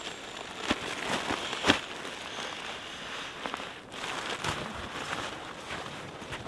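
Rustling and crinkling of nylon camping gear being handled: a stuff sack being unpacked and an inflatable sleeping pad being arranged inside the tent, with scattered clicks and knocks, the loudest about one and a half seconds in.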